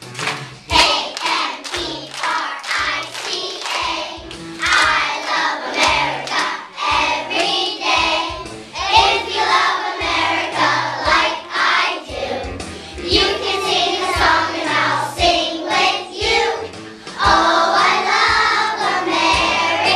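Young children's choir singing a song with musical accompaniment, with rhythmic hand clapping in time during the first part.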